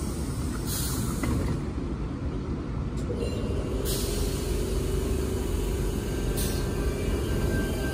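Sydney Trains C set double-deck electric train standing at the platform: air hisses out in several bursts over a steady low rumble, and a steady electric hum sets in partway through, with a higher tone joining near the end.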